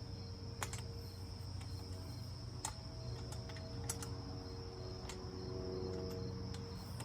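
A few light, sharp metal clicks scattered over several seconds as a wrench is tried on a nut, over a steady high-pitched tone and a low hum.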